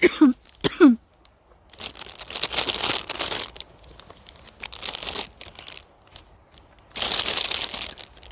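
Plastic packaging crinkling as it is handled, in three bursts.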